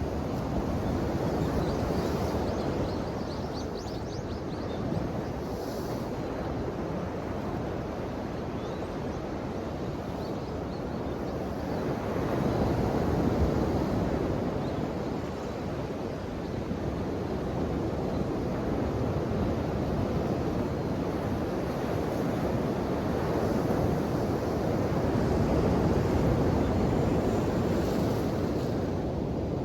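Ocean waves washing ashore in a steady surf, with swells growing louder about twelve seconds in and again near the end.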